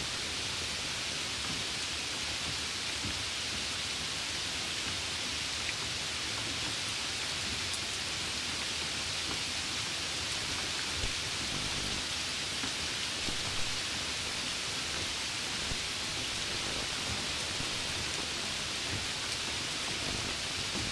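Steady, even, high hiss with a few faint scattered ticks, the clearest about two-thirds of the way through.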